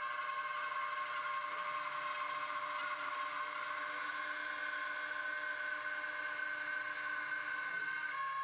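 CNC router spindle running with a steady high whine as a compression bit cuts a part's profile through plywood, over an even hiss of cutting noise.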